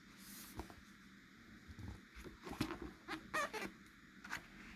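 Light handling of a hardcover book and its glossy dust jacket: a run of short rustles and small squeaks, busiest in the middle.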